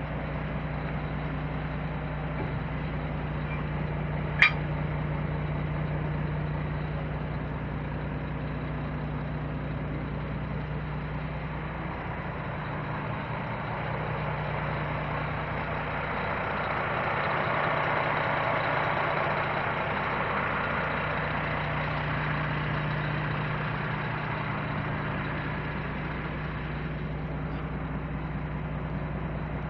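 Scania P420 truck's diesel engine idling steadily, with one sharp metallic click about four seconds in. A rushing noise swells and fades around the middle.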